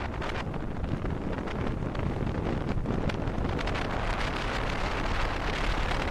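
Wind buffeting the microphone on a moving Royal Enfield Himalayan motorcycle, with the bike's engine running steadily underneath.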